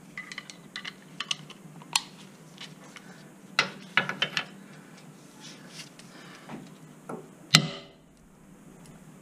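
Hand tools clinking and clanking as a socket and breaker bar are handled and fitted onto a suspension bolt: scattered metal clicks and knocks, with one louder ringing metal clank near the end.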